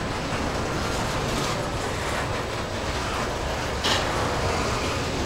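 Union Pacific intermodal train's double-stack well cars rolling past close by: a steady rumble and rattle of steel wheels on the rails, with one sharp knock about four seconds in.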